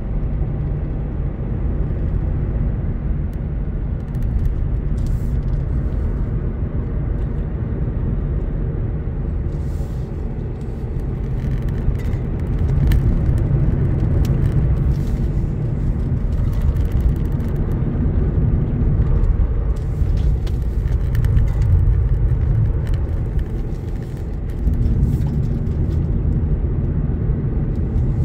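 Steady low rumble of a car's engine and tyres on the road, heard inside the cabin, swelling a little at times, with scattered light clicks.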